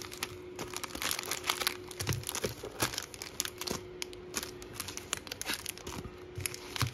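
Sealed foil-wrapped Donruss football card packs crinkling and clicking against each other as they are shuffled and restacked on a tabletop, in a dense, irregular crackle.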